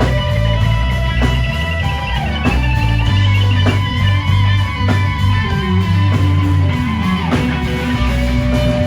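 Live rock band playing: electric guitar holding sustained lead notes with vibrato over bass and drums, the drum beats falling about every second. About six seconds in the bass walks down in steps.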